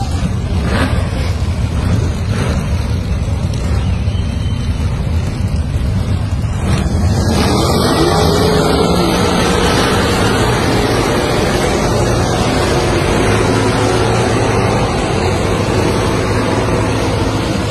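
Massed muscle-car engines running together in a dense, deep rumble. About seven seconds in the sound jumps as they rev hard, with revs rising and falling, and the cars lay down burnouts that fill the arena with tyre smoke.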